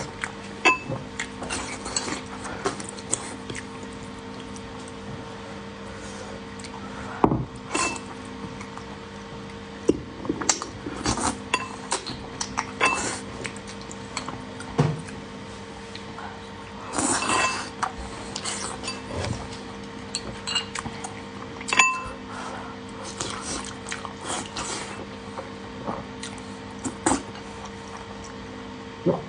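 Eating utensils clinking and scraping against dishes in short, irregular knocks, some with a brief ringing tone, over a steady low hum.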